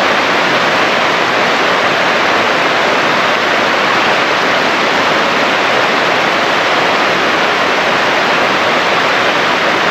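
Running creek water rushing steadily.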